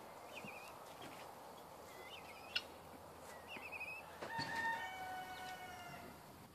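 A rooster crowing once, about four seconds in: one long call of about two seconds that steps down in pitch partway through. Before it come a few short high chirps and a single sharp click.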